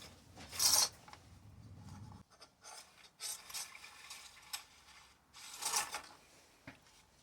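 Several short bursts of scraping and rasping, about a second in, again in the middle and near the end, with a couple of light knocks.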